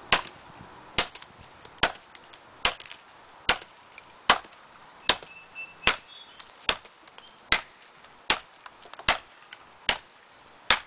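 Collins camp hatchet chopping into a very hard, gnarly hedge-wood branch on a stump: about fourteen sharp, evenly spaced blows, a little over one a second.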